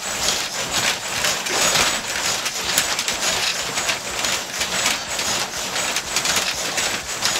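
Home-built quadruped robot dog stepping quickly in place: its leg motors and mechanisms clatter and its feet stamp on the carpeted floor in a fast, uneven rhythm.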